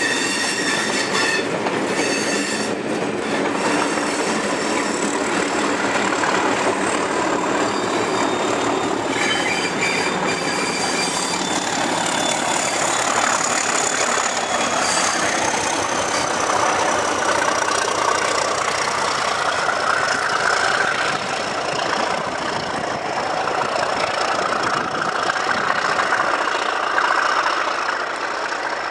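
Coaches of a slow-moving passenger train rolling round a tight curve, the wheels squealing in thin, high, steady tones that drift slowly lower, over a continuous rumble and clicking of wheels on rail. A Class 37 diesel locomotive at the rear runs past with the coaches.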